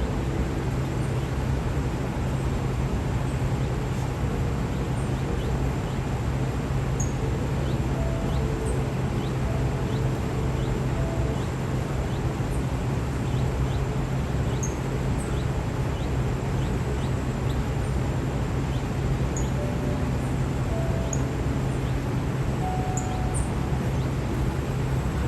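A small bird chirping with many short, high, quick peeps scattered irregularly throughout, over a steady low hum of machinery noise that is the loudest sound.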